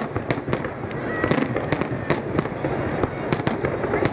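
A dense barrage of aerial firework shells bursting: sharp bangs, several a second and irregularly spaced, over a continuous noise of overlapping detonations.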